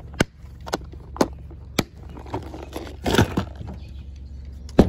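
Latches of a clear plastic tackle box snapping, four sharp plastic clicks about half a second apart. Then a brief scuffing handling noise and one louder knock near the end.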